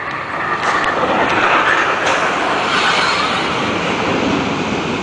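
Prussian P 8 steam locomotive 2455 Posen and its coaches rolling past close by as the train arrives, with steam hissing and wheels running on the rails. It grows louder about half a second in as the engine reaches the listener, with a few sharp clicks from the track.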